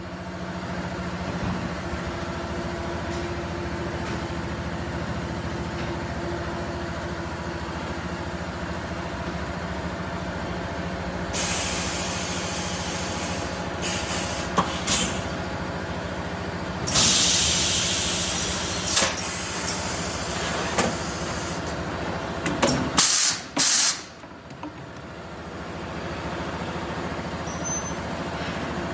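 Semi-automatic PET bottle blowing machine running with a steady hum, broken by loud hisses of compressed air from its blow-and-exhaust cycle: a hiss of a couple of seconds about a third of the way in, short puffs just after, a longer hiss of several seconds past the middle, and two sharp blasts near the end, after which the hum dips and builds again.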